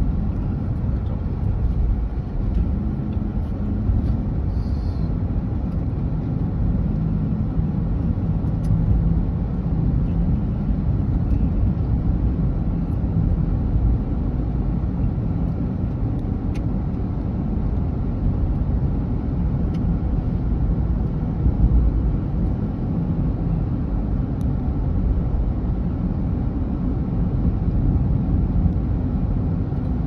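Car driving at road speed, heard from inside the cabin: a steady low rumble of engine and tyre noise.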